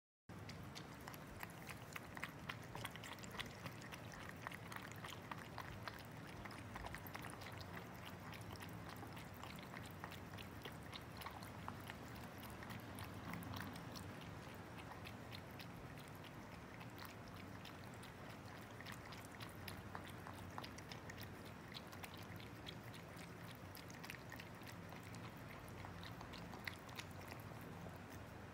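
Two cats chewing and chomping food from bowls: a steady, irregular run of small wet smacking and clicking chews.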